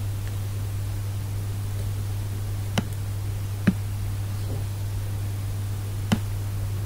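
Three sharp computer mouse clicks, the second less than a second after the first and the third about two and a half seconds later, over a steady low electrical hum and hiss.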